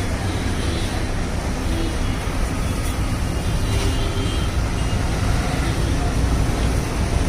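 Steady road traffic noise, a constant low rumble of passing vehicles.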